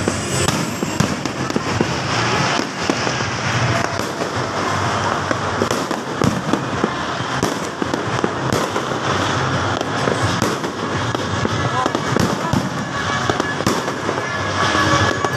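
Many fireworks going off at once: a continuous, dense din of pops, bangs and crackling with no let-up.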